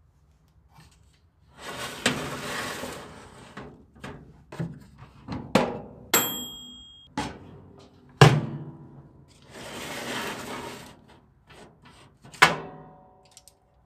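Workshop handling sounds: sharp knocks and clunks as hard objects are set down or struck, two stretches of rough scraping or rubbing, and a short high metallic ring about six seconds in.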